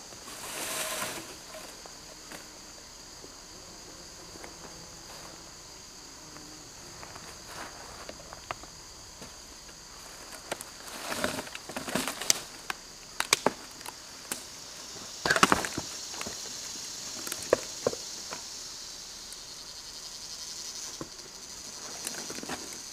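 Steady chorus of insects, two high, even trilling bands. From about the middle, a run of sharp cracks and rustles of dry sticks and brush snapping as the brush pile is searched; these cracks are the loudest sounds.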